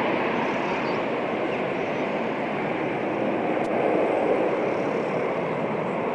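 Ilyushin Il-76's four turbofan engines as a steady jet rush while the freighter rolls out after landing, the engines in reverse thrust, swelling a little about four seconds in.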